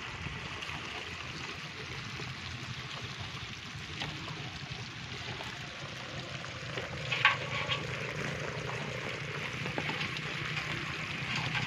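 A heap of live freshwater crabs crackling and fizzing on a tarp as they crawl over one another, with a brief clatter about seven seconds in. A steady low hum runs underneath.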